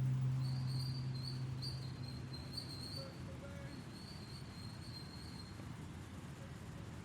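The last acoustic guitar notes ring out and fade away over the first two seconds or so. After that a faint outdoor ambience is left, with short high chirping phrases that repeat on and off.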